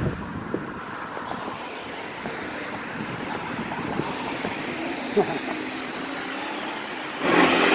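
Road traffic on a street: a steady rush of passing cars, swelling gently through the middle, with a short loud rush of noise near the end.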